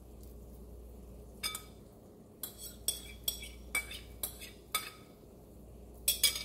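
A metal spoon tapping and clinking against a glass mixing bowl as the last of the beaten egg is scraped out over the frying pan: a series of sharp, briefly ringing clinks, more closely bunched near the end.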